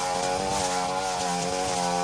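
Petrol brushcutter engine running steadily under throttle while cutting grass, its pitch wavering slightly.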